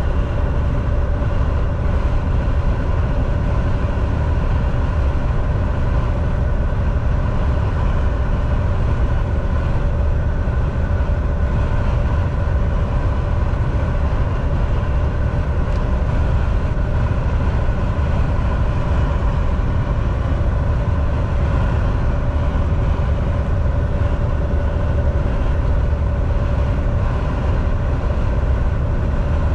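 Semi truck driving at a steady cruising speed: a constant loud low rumble of engine and road noise, with a steady whine held under it.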